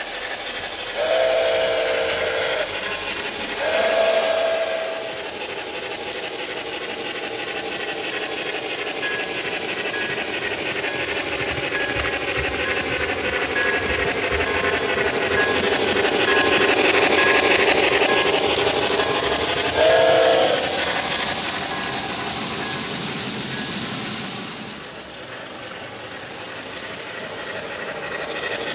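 Steam locomotive running, its exhaust chuffing steadily as it grows louder and then fades. Two long whistle blasts sound near the start, and a short third blast comes about twenty seconds in.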